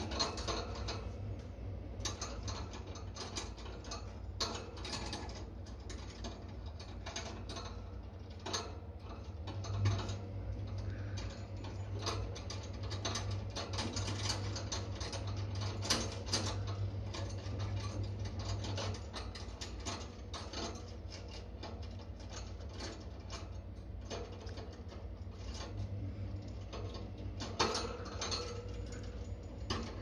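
A blue quaker parrot chewing and mouthing small brass bells on a cage toy: a steady run of irregular clicks and metallic clinks as its beak works the bells, which jingle against each other. A steady low hum runs underneath.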